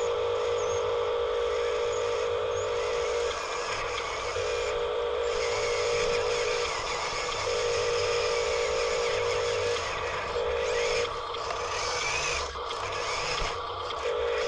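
Electric drive of a toy-grade RC dump truck whining as it is driven, in stretches of one to three seconds that start and stop with the throttle.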